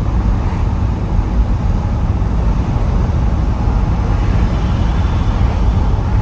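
Inside the cabin of a 1957 Ford Thunderbird cruising at a little over 50 mph: the steady low rumble of its V8 through mellow mufflers, mixed with road and wind noise.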